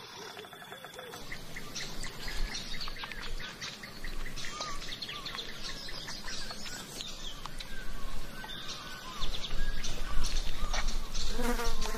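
Flies buzzing around a fresh kill, with birds chirping in the background and a louder low noise from about nine seconds in.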